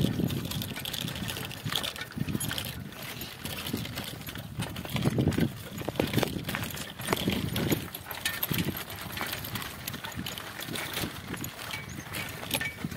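Bicycle riding over a rough dirt track: tyres crunching on the dirt and gravel, with irregular rattles and knocks from the bike over bumps.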